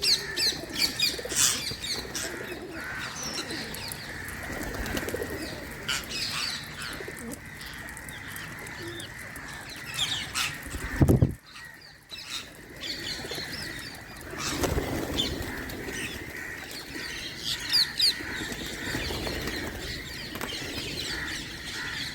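Wild Indian green parrots (parakeets) chirping in many short, high calls. There is a louder burst about eleven seconds in, then a brief hush.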